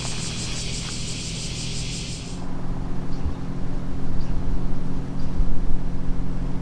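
High, pulsing insect buzzing that cuts off abruptly about two seconds in. A low steady hum with uneven low rumbling continues underneath and grows a little louder afterwards.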